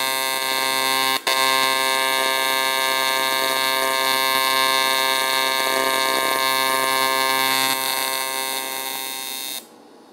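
AC TIG welding arc buzzing steadily on dirty cast aluminum, the arc working through oxides and contaminants in a ratty area of the casting. It breaks for an instant about a second in and cuts off near the end, leaving a low hum.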